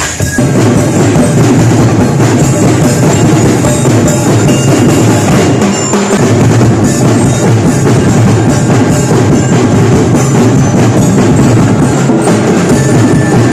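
Loud music with drums and percussion.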